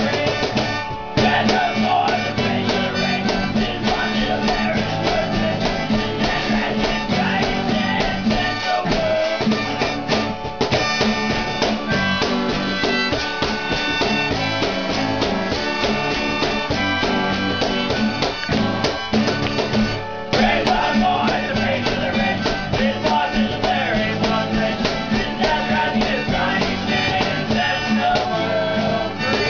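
A small acoustic band playing live: strummed acoustic guitar, electric bass and a cajón beat, with a sustained lead melody on top.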